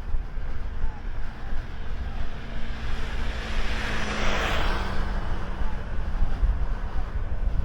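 A vehicle passing close by, its noise swelling to a peak about halfway through and then fading, over steady wind rumble on the microphone.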